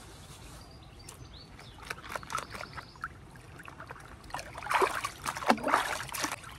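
River water splashing and dribbling as hands scoop it over long hair to rinse it. The first two seconds are quiet, then come scattered splashes, with louder, denser splashing near the end.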